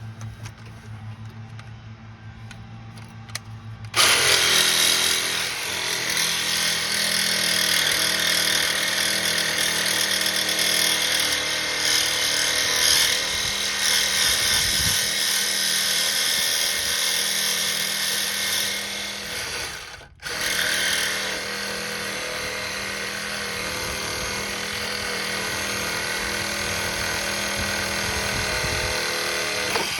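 A power tool runs against a seized, stripped sway bar link bolt to get it off. It starts loud about four seconds in, cuts out briefly around twenty seconds, then runs steadily again.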